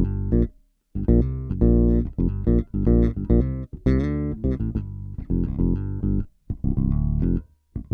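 Electric bass played through a Boss OC-2 Octave pedal, with the one-octave-down voice set at half level against a half-level dry signal, giving a thick, doubled low tone. It plays a riff of short plucked notes broken by brief pauses.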